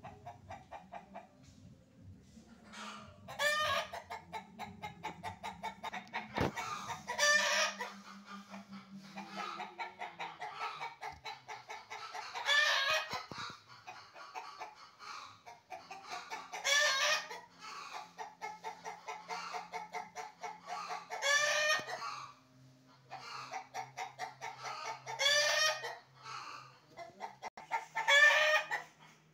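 Chicken clucking in quick runs, each run ending in a louder drawn-out call, the pattern repeating about every four seconds.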